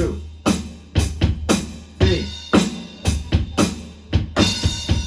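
Drum kit playing a steady groove: bass drum and snare strikes several times a second, with a low boom ringing under them and brighter cymbal wash coming in near the end.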